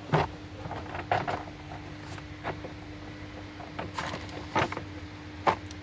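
Scattered short clicks and knocks at uneven intervals, about half a dozen, over a steady hum.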